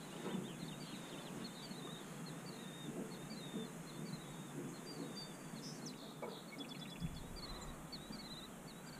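A small songbird calling over and over, short high chirps about two a second, with a quick trill about six seconds in, over a faint steady hiss.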